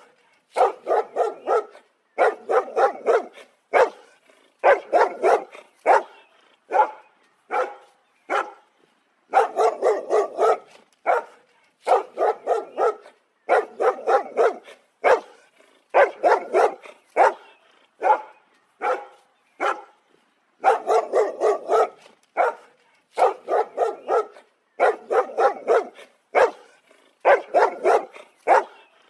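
Dog barking repeatedly in quick volleys of several sharp barks, each volley followed by a short pause.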